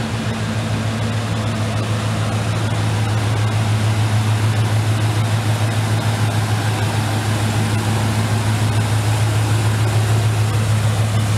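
A 1991 GMC Sierra's 5.7-litre V8 idling steadily with a low, even hum, growing a little louder over the first few seconds.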